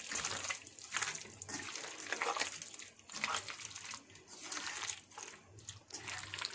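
Wet squelching of hands kneading raw chicken pieces in a thick masala marinade, in irregular strokes about once or twice a second.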